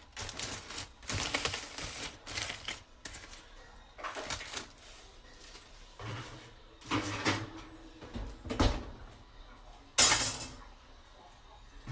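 Utensils scraping and clinking against dishes and pans as food is served onto a plate: a string of short, irregular clatters, with the loudest knock about ten seconds in.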